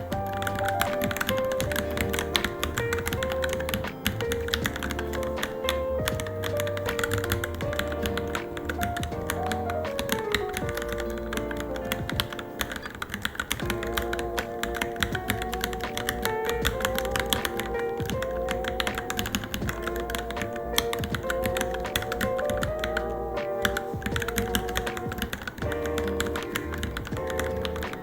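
Fast, continuous typing on a Varmilo Minilo mechanical keyboard, with keystrokes clicking irregularly several times a second, over background music.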